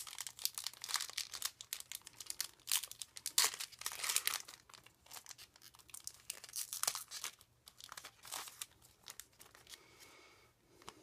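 Foil wrapper of a Pokémon trading card booster pack crinkling and tearing as it is pulled open by hand, in quick irregular crackles that thin out about two-thirds of the way through.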